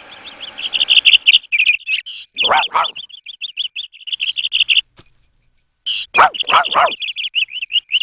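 Cartoon bird whistling a fast, warbling trill, broken twice by clusters of short dog yaps.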